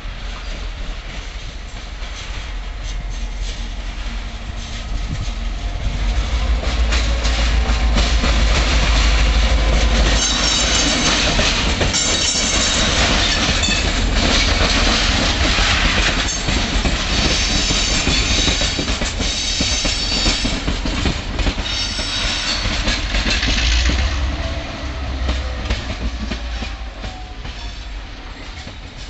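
Adif Class 319 diesel-electric locomotive hauling a catenary inspection car past: deep diesel engine rumble and the clatter of wheels on the rails. It builds about six seconds in, stays loud for about fifteen seconds, then fades away.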